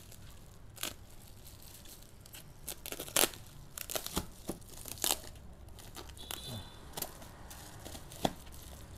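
Plastic bubble-wrap being slit and torn open with a kitchen knife blade: irregular crinkling with sharp crackles and snaps, the loudest about three seconds in.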